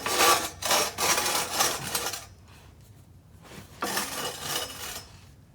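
QuickJack lift frames being slid across the floor, scraping in a run of rough strokes for about two seconds, then again for about a second near the end.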